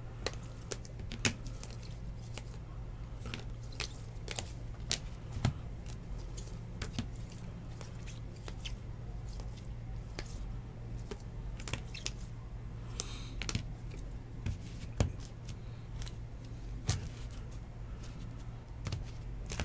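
Clear rigid plastic card holders clicking and tapping against one another as a stack of cards is handled and sorted, scattered irregular clicks over a steady low hum.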